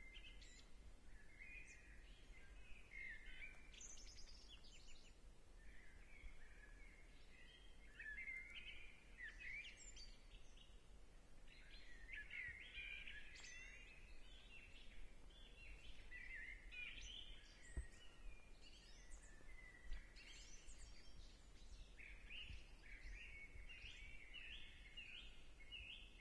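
Faint songbird song, a string of varied chirping phrases, ending in a quick run of repeated notes. Two soft knocks about two seconds apart come in the second half.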